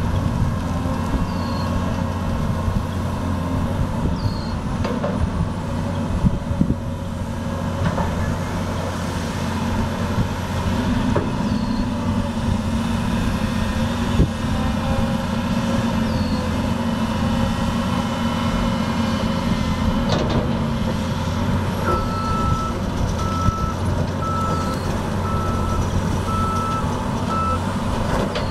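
Diesel engine of a Cat 325 excavator on a Wilco amphibious pontoon undercarriage running steadily as it works, with occasional clunks. Near the end a beeping alarm sounds about once a second.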